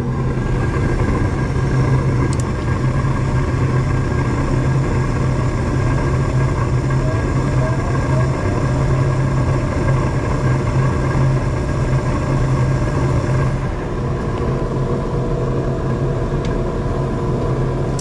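Rheem gas furnace running steadily after a restart, a loud even low hum with a rushing noise above it, while the blower fan has yet to come on.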